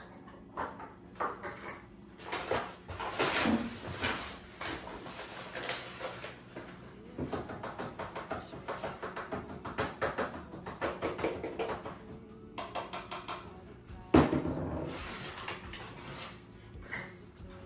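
Kitchen handling sounds as flour is measured out: a bag of flour rustling and a measuring cup scraping and clinking against a steel mixing bowl, with many small clicks and taps. Late on there is one sharp knock, the loudest sound, and there are a few murmured voice sounds.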